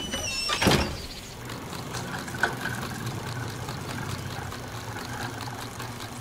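A brief loud rush of noise about half a second in, then an engine running steadily with a low, even hum.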